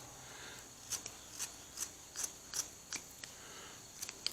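Freshly file-sharpened dollar-store kitchen shears snipping through cloth, a run of quick cuts about three a second starting about a second in.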